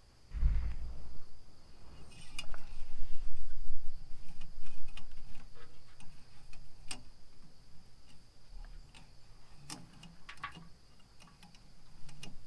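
Metal engine oil dipstick being worked back into its curved dipstick tube on a Chevy 350 V8: a thump near the start, then scattered light metal clicks and scrapes as it catches on the bend in the tube.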